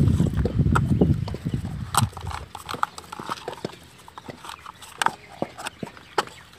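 Dry coconut shell halves clacking and knocking against one another in quick, irregular hollow clacks as the dried kernels are pried out by hand and the empty shells are tossed onto a pile. A low rumble fades out about two seconds in.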